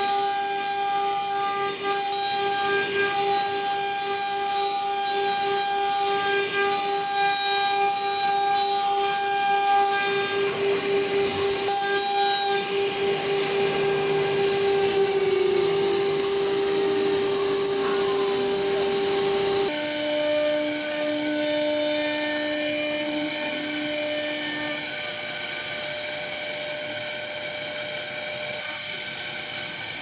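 CNC router spindle running at high speed with a steady whine and overtones while the bit bores lock holes into a wooden door panel. About two-thirds of the way through, the whine sweeps down and gives way abruptly to a different, lower steady whine.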